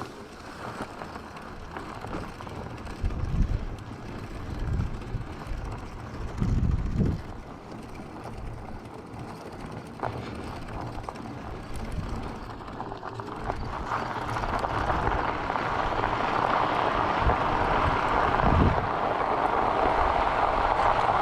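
Electric bike on the move: chain and drivetrain noise, with the Bafang BBSHD mid-drive motor so quiet it is hard to pick out, and a few low buffets of wind on the microphone. About two-thirds of the way in, a steady tyre noise from rolling onto a gravel road rises and drowns out everything but some chain noise.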